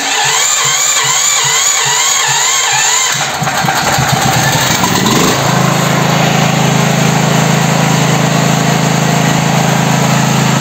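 Electric starter cranking the Patriot GP 8210 AE generator's single-cylinder petrol engine for about three seconds, its whine wavering with each compression stroke. The engine then catches, revs up, and by about five seconds in settles into steady running. It starts now that its valve clearances, far too wide after a rocker worked loose, have been reset.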